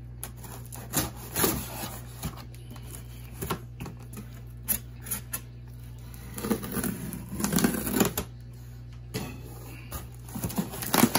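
A knife blade slitting the packing tape on a cardboard shipping box: scattered small scrapes and taps of blade on tape and cardboard, with a longer stretch of scraping and rustling about six to eight seconds in.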